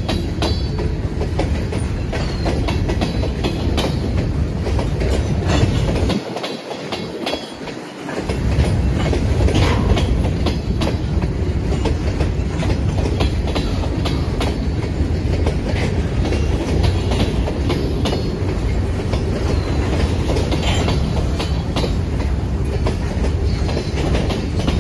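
Iowa Northern freight train cars rolling through a level crossing, wheels clacking steadily over the rail joints. Heavy wind rumble on the microphone drops out briefly about six seconds in.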